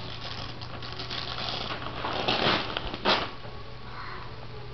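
Wrapping paper on a gift-wrapped present crinkling and rustling as a toddler's hands pull at it, in uneven bursts with one sharper crackle about three seconds in.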